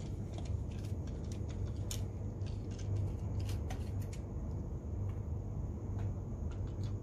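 Scattered small clicks and ticks of a precision screwdriver working small screws out of a DJI Spark remote controller's plastic housing and logic board, over a steady low hum.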